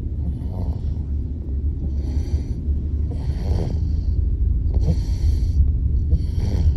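A sleeping baby's snoring breaths: short, hissy, noisy breaths about every second or so, over a steady low rumble.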